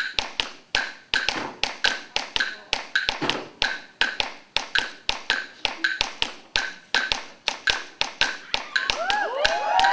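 Sparse percussion rhythm of sharp clicks, about three a second, some with a short ringing tone. Near the end voices whoop and cheer over it.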